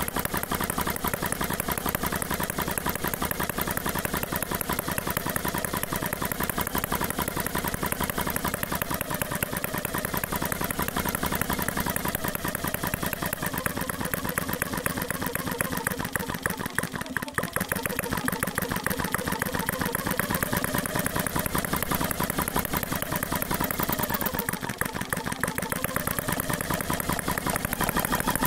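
RETROL HM01 four-stroke model petrol engine running steadily with a rapid, even clatter, easing off briefly about halfway through.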